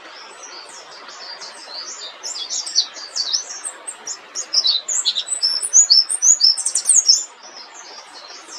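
Pleci (white-eye) singing a long, fast rolling song of high chirping notes, loudest toward the end, over a steady background hiss.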